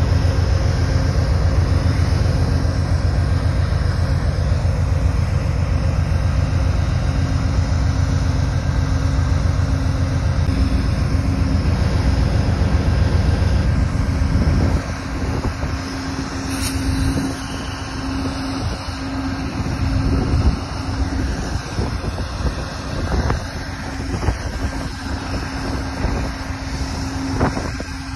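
Amtrak GE Genesis diesel-electric passenger locomotive and its train rumbling past close by, with wind on the microphone and a steady engine hum. About halfway through, the loud rumble drops off, leaving a quieter rumble and the locomotive's hum farther off.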